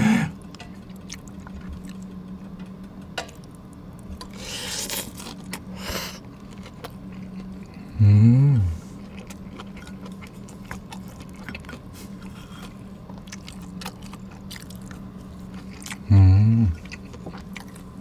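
Close-miked eating: a metal spoon scraping and clinking in a ceramic bowl and chewing of rice and pork cutlet soaked in stew broth. Two short hummed 'mm' sounds come about eight and sixteen seconds in.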